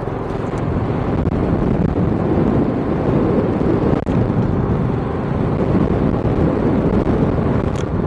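Motorcycle being ridden at a steady speed: the engine running under a steady rush of road and wind noise, with a brief dip about four seconds in.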